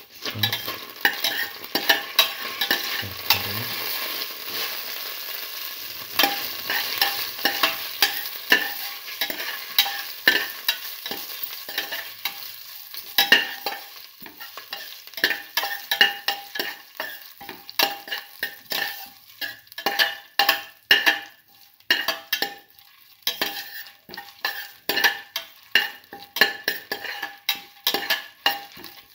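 Beef and vegetables sizzling in clarified butter in a metal pot while being stirred, the utensil scraping and knocking against the pot. The sizzle is steady for roughly the first half. After that, quick repeated stirring strokes, about two to three a second, stand out over a fainter sizzle.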